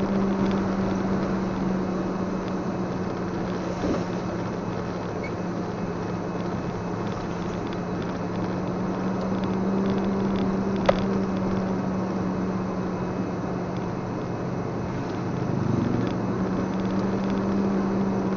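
Steady drone of a vehicle's engine heard from inside the cab, with tyre hiss on the wet road. A single sharp click about eleven seconds in.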